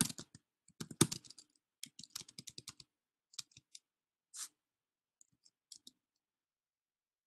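Typing on a computer keyboard: a quick run of key clicks for about three seconds, then a few scattered keystrokes that stop about six seconds in.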